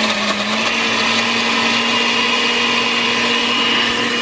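Countertop blender with a glass jar running steadily at high speed, blending a protein shake of milk, banana, oats and protein powder. Its motor pitch steps up slightly about half a second in, then holds.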